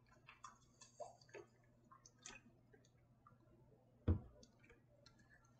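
A person drinking from a plastic water bottle: a few faint swallows and clicks of the bottle over the first two seconds or so, then a single dull thump about four seconds in.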